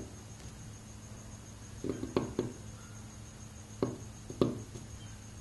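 A steel seal-carving knife pushed through a soft seal stone in short cuts, each a brief scrape: three close together about two seconds in and two more about four seconds in, over a low steady hum.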